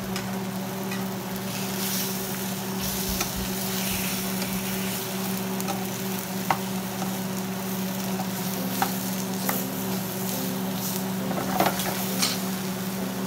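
Ripe plantain slices frying in butter in a nonstick pan, sizzling steadily. A spatula scrapes and taps against the pan as the slices are turned, with a few sharp clicks in the second half.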